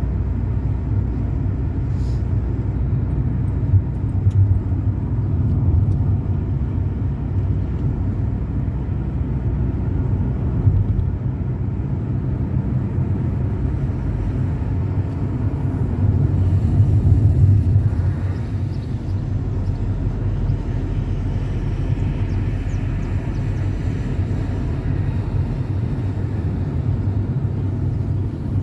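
A car driving on city streets: steady low engine and road rumble, growing louder for a couple of seconds a little past the middle.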